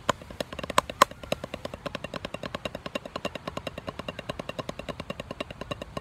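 Snare drum played with sticks in a fast, even stream of strokes, a snare rudiment exercise of Swiss Army triplets and flam-taps, with two louder accented hits about a second in.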